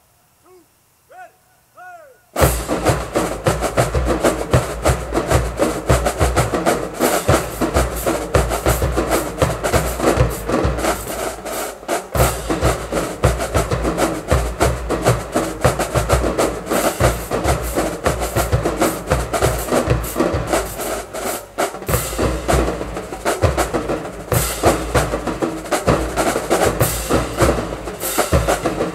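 Marching drumline of snare and bass drums crashing in together about two seconds in and playing a loud, dense drum cadence, with fast rolls and sharp stick clicks.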